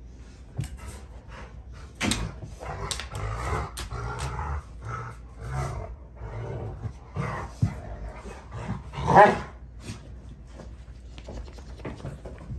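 Two Rottweilers play-fighting, growling at each other amid scuffling and knocks of paws and bodies. The loudest sound is one short vocal outburst about nine seconds in.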